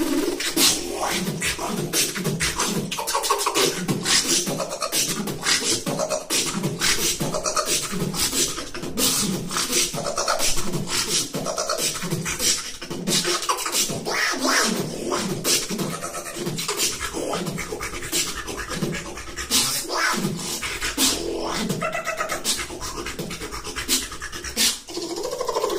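A man beatboxing: a fast, steady rhythm of vocal percussion, sharp mouth clicks and snare-like hits over repeated low kick sounds.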